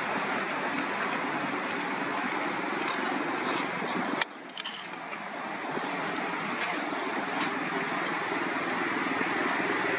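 Steady rushing outdoor background noise, broken by a sharp click and a brief drop in level about four seconds in.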